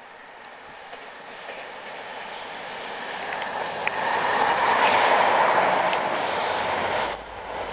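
Network Rail test train, led by driving van trailer 82145 and propelled by a Class 67 diesel locomotive, approaching and passing beneath. The rumble of wheels on rail grows steadily to a peak about five seconds in, then drops abruptly about seven seconds in.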